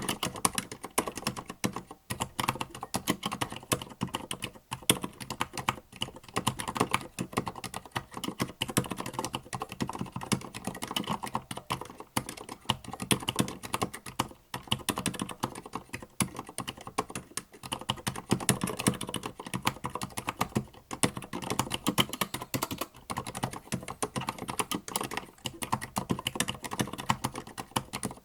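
Continuous typing on a Tada68 mechanical keyboard with Gateron Silent Black linear switches: a dense, unbroken stream of damped keystrokes.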